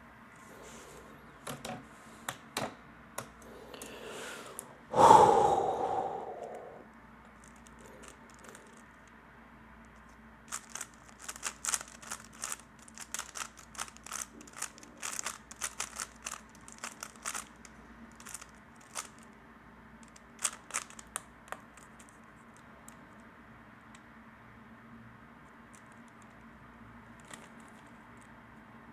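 3x3 Rubik's cube being turned fast in a speedsolve: a dense run of rapid plastic clicking and clacking for about ten seconds in the middle, with scattered single clicks before and after. A single loud, brief sound about five seconds in stands out above the rest.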